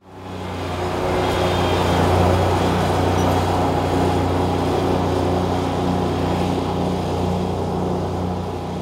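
Engine of a 72-inch Wright mower fitted with Greenzie autonomous controls, running steadily with an even low drone. It fades in over the first second or two.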